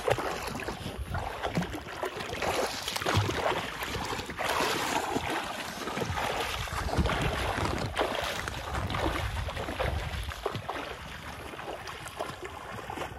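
Water splashing and sloshing irregularly as a person swims close to the microphone, with wind on the microphone.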